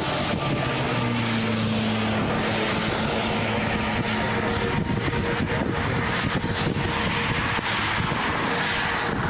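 Steady rushing wind noise buffeting the microphone, with a low hum that fades out about two seconds in.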